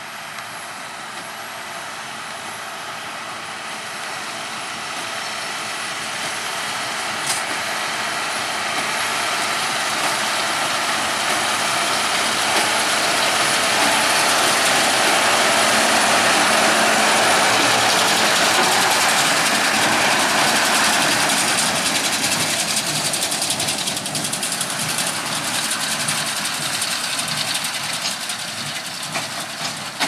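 New Holland T7.210 tractor and New Holland BB9060 large square baler running under load while baling grass. The sound grows steadily louder as the machine approaches, is loudest about halfway through as it passes, then fades as it moves away.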